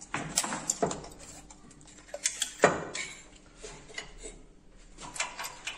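Metal clinks and knocks as a Fiat 1.3 Multijet cylinder head is set and shifted in the steel holding fixture of a head-surfacing machine, a scattered series of sharp knocks with the loudest about two and a half seconds in.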